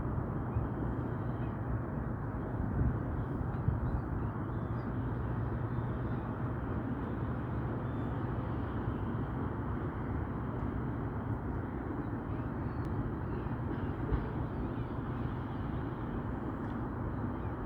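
Steady low engine rumble with a constant hum, unchanging throughout.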